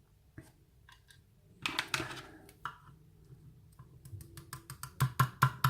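Small metal clicks and taps from tweezers and lock parts as a pin-tumbler lock is gutted: a few scattered clicks, a short rattle about two seconds in, then a run of sharp taps, several a second, growing louder near the end.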